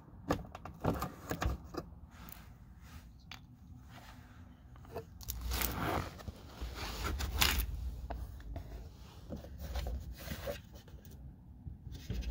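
Quarter-turn plastic clips on a 2011 Jeep Grand Cherokee WK2's plastic lower front fascia being turned and worked loose by hand: scattered small clicks and scrapes of plastic on plastic, with a louder stretch of rubbing and knocking in the middle.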